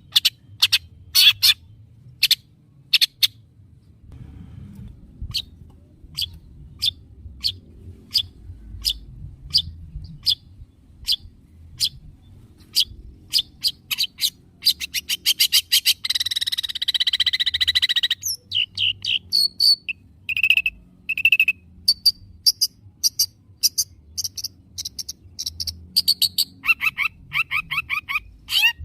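Long-tailed shrike calling: short, sharp high notes repeated in quick runs, with a harsh, raspy call lasting about two seconds in the middle.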